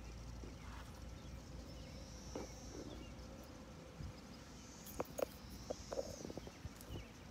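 Faint outdoor evening ambience of insects calling, high buzzing phrases under a second long that repeat every couple of seconds. A few short clicks and knocks come about five to six seconds in.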